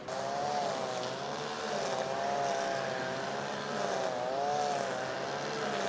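A motor running, its pitch wavering up and down every second or so.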